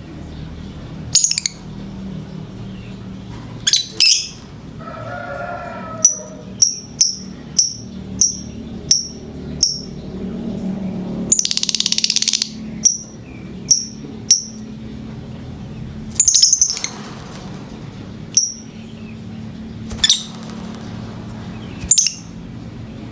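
Lovebird in breeding condition calling: shrill high chirps, including a quick run of about eight short calls at roughly two a second, then a long harsh screech, then scattered single chirps. A low steady hum lies underneath.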